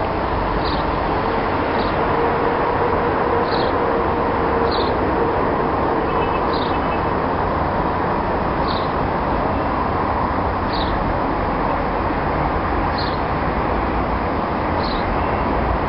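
Steady rushing outdoor noise with a low rumble, and a short high bird chirp every second or two.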